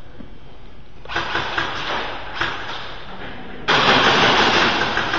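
Electric airsoft guns firing on full auto, with a motor-and-gearbox rattle. The firing starts about a second in, eases, then returns as a longer and louder burst from about three and a half seconds in.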